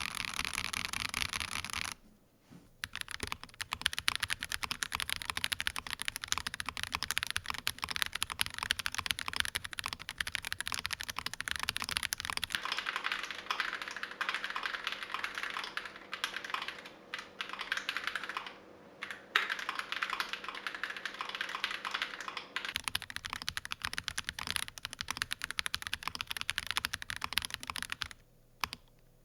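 Steady fast typing on an Akko ACR Pro Alice Plus mechanical keyboard with lubed Akko CS Clear switches and ASA keycaps, a dense run of keystroke clicks. After a short break about two seconds in, it is playing in its stock polycarbonate plate with Poron gasket configuration.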